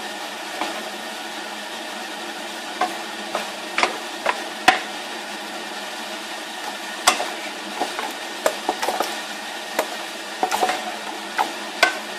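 Wooden spatula stirring curry fried rice in a frying pan, with irregular knocks of the spatula against the pan over a steady sizzle.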